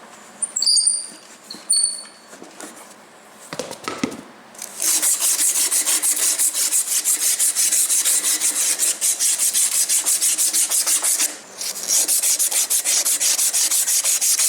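Two light metallic clinks, then rapid back-and-forth abrasive scrubbing on a rusty steel axle shaft, cleaning off the rust so a bushing will fit over it; the strokes start about five seconds in and pause briefly once.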